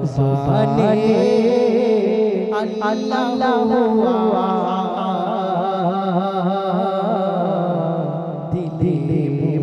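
A man singing an Islamic gojol (devotional song) into a handheld microphone, his voice holding long notes that waver in ornamented turns.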